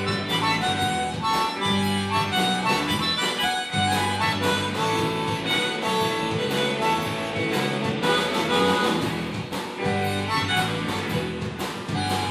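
Live blues band playing a shuffle on electric guitars, bass guitar and drums, with a harmonica playing held, wailing lead notes over a steady beat.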